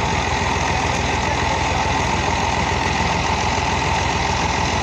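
Diesel engines of two farm tractors, an Al-Ghazi 480 and a 135, running steadily and evenly while hitched together in a tractor pulling contest.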